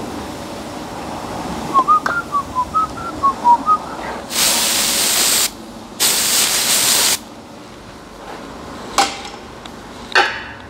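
A person whistles a short tune of about ten quick notes. Then an aerosol can of brake cleaner sprays twice, each burst about a second long, onto a plastic oil filter housing cap. Two short clicks come near the end.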